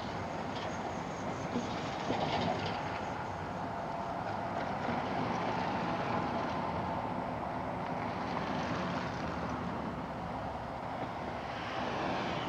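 A train heard in the distance: a steady rumble under street noise.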